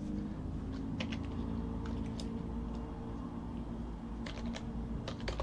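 Typing on a computer keyboard: a few separate keystrokes in the first half, then a quick run of keys near the end, over a steady low hum.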